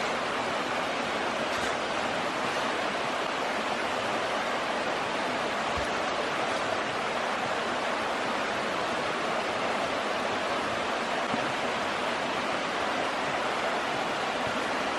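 Waterfall on the Little Union River: a steady, unbroken rush of falling water.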